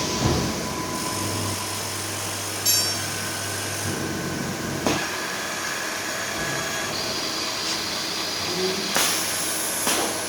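Vacuum paint dosing machine running: a steady mechanical noise with a low motor hum for the first few seconds, sharp clicks about a third and halfway through, and a short burst of hiss near the end.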